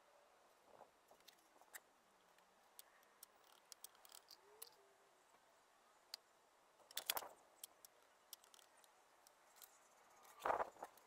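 Faint, scattered clicks and taps of thin natural-stone slices and small tools being handled while setting a mosaic, with a louder clatter about seven seconds in and another near the end.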